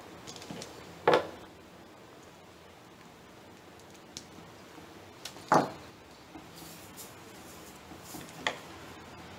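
Sharp snips of a hand cutter trimming small shoots on a casuarina bonsai branch: two loud snips about four and a half seconds apart, then a softer one near the end, with faint rustling of the needle-like foliage between them.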